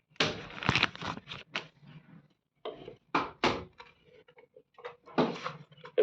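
Cardboard and plastic packaging handled during an unboxing: irregular rustles, scrapes and knocks in three clusters, the loudest in the first second and a half.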